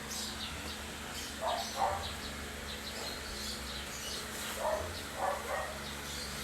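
A dog barking faintly, a few short barks coming in pairs, over a steady low hum.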